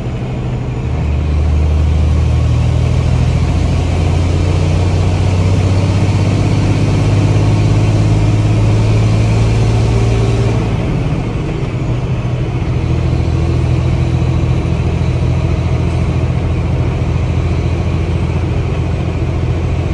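Semi truck's diesel engine running inside the cab while driving, a steady low hum that grows about a second in. About ten seconds in the engine note drops off and changes, then picks up again a couple of seconds later, with the driver's hand on the manual gear shifter.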